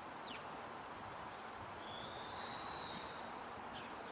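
Birds calling over a steady outdoor background hiss: a quick falling chirp just after the start, a drawn-out level whistle of about a second and a half in the middle, and another short falling chirp near the end.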